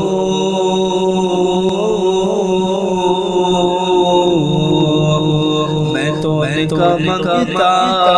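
A male voice singing a naat with long, slowly wavering held notes and an echo effect, over a steady low drone.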